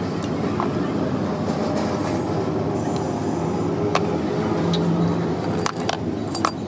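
A motor vehicle engine running steadily, with a few sharp metallic clinks.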